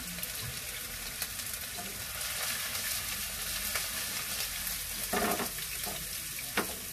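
Diced potatoes sizzling and crackling in hot oil in a granite-coated frying pan. The sound swells briefly about five seconds in, and there is a sharp click near the end.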